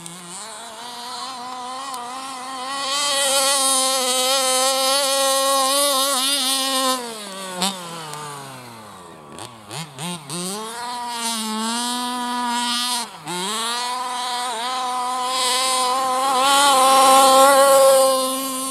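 1/5-scale petrol RC buggy's 30.5cc two-stroke engine with a DOM v2 tuned pipe, running flat out at a steady high pitch. About seven seconds in, the throttle comes off and the engine falls to a low note, then revs back up, with another short drop near the middle. It is loudest near the end.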